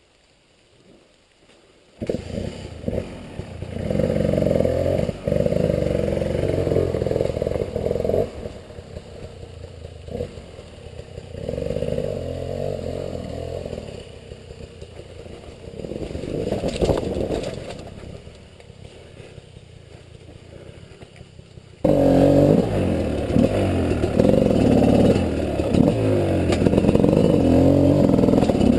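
A 300cc two-stroke enduro dirt bike engine revving and easing off repeatedly while picking through slick terrain, with clattering from the bike. After about two seconds of near silence the engine comes in, and it gets suddenly louder near the end.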